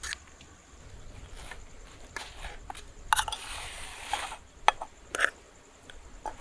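Camp-cooking handling sounds: scattered clicks and knocks of utensils and cookware, with about a second of scraping noise in the middle and two sharp clicks a little later.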